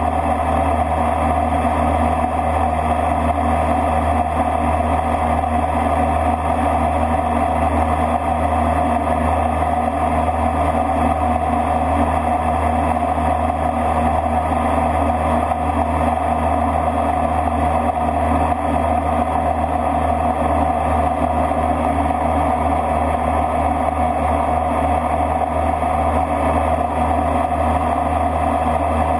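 Steady drone of the Bombardier Dash 8-Q200's twin Pratt & Whitney Canada PW123 turboprops and propellers in cruise descent, heard inside the flight deck. The propeller hum is low and unchanging, with a constant whine above it.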